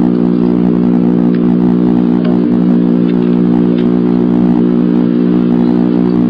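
Loud, steady electrical hum, an unchanging buzzing drone with many even overtones, in the nest-box camera's audio. A few faint ticks sound over it.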